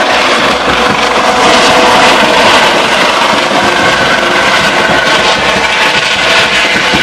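Eurocopter Dauphin rescue helicopter flying low overhead: loud, steady turbine and rotor noise with a faint whine.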